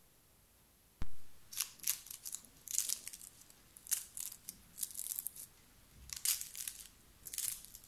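A table knife cutting through the crispy, flaky crust of layered börek on a plate, the pastry crackling and crunching in a string of short bursts. There is one sharp knock about a second in.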